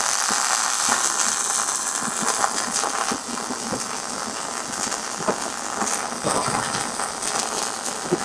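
Robotic welding arc crackling and hissing steadily, with many fine irregular ticks.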